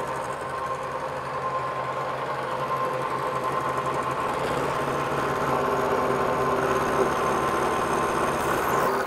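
Steinel SH4 horizontal milling machine running with its milling cutter taking a 1.5 mm cut across an aluminium bar: a steady machine hum with a rough cutting noise, growing slightly louder about halfway through.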